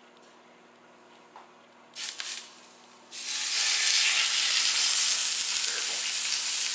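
Ground bison sizzling in a hot cast-iron skillet: a short sizzle about two seconds in as the block touches the pan, then loud, steady sizzling from about three seconds in as it is pressed down to sear.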